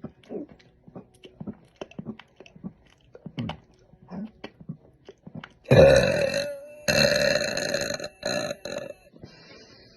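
A young woman's quiet chewing and mouth sounds, then about six seconds in a loud, drawn-out burp. It breaks off briefly and goes on in a second long belch and two short ones.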